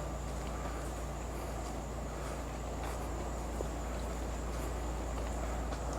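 Outdoor trail ambience: wind rumbling on the microphone under a steady high insect drone, with a few faint, irregular clicks.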